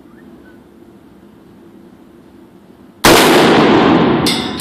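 A single AR-15 rifle shot about three seconds in, very loud and ringing on in the reverberation of an indoor range before it fades, followed by a couple of sharp clicks near the end.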